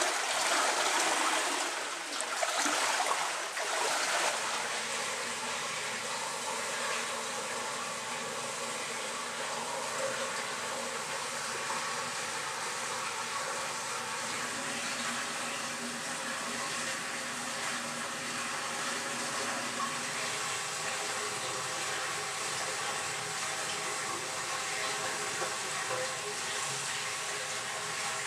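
Swimming-pool water: splashing at the surface for the first few seconds, then a steady muffled underwater hiss with a faint hum, heard while scuba divers train below the surface.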